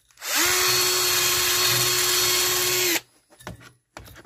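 Handheld rotary tool fitted with a wire brush wheel, brushing rust off steel bicycle handlebars: the motor spins up quickly to a steady high whine, runs for about three seconds and cuts off suddenly, followed by a few light knocks.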